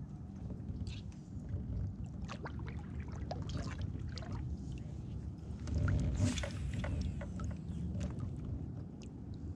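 Small water sounds around a kayak on the water: scattered light ticks and knocks over a steady low rumble, with a brief splashy rush about six seconds in.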